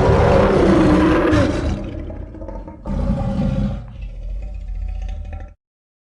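Big-cat roar sound effects: a long roar fades out about two seconds in, a second, shorter roar follows a second later, and the sound cuts off abruptly to silence near the end.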